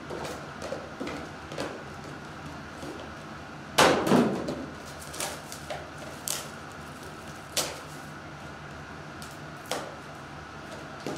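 Small cardboard trading-card boxes being handled and set down on a table: a series of light taps and knocks, the loudest a double knock about four seconds in.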